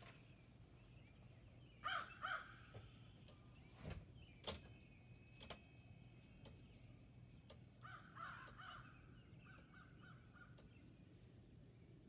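Faint crow caws: two caws about two seconds in, then a run of caws around eight seconds that trails into quicker, fainter notes. A sharp click with a brief high ringing comes about four and a half seconds in.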